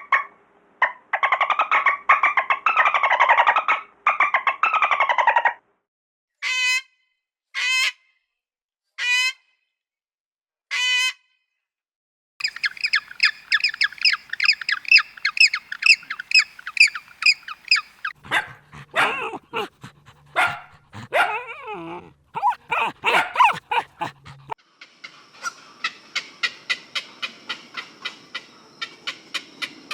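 A succession of different animal calls and chirps in separate bursts. Four short calls come about a second and a half apart, followed by a long run of rapid repeated chirping.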